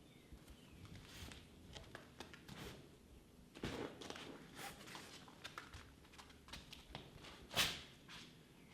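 Scattered soft taps and rustles in a small room, with one louder, brief noisy rustle about three-quarters of the way through.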